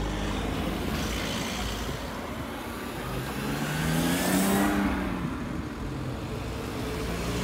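Cars driving past on a road. The loudest is one accelerating by about four seconds in, its engine rising in pitch as it passes; another car's engine comes up near the end.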